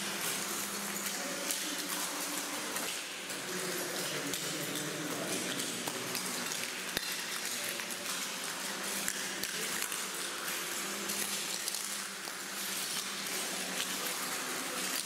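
Continuous crackling and rustling of sheets of paper underfoot as many people walk across a paper-covered floor, with a steady low hum underneath.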